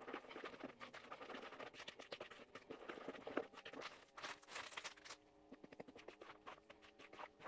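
Cake batter being stirred by hand in a mixing bowl, the utensil faintly scraping and clicking against the bowl in irregular strokes, with a short lull partway through.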